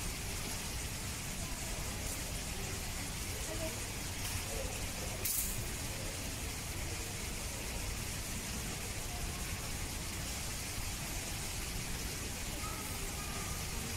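Steady background noise with faint, distant voices and a single sharp click about five seconds in.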